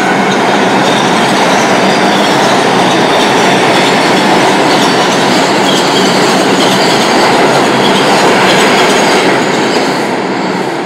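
New York City subway train passing through the station at speed: a loud, steady rush of steel wheels on the rails with scattered high-pitched wheel squeals, fading as it moves off near the end.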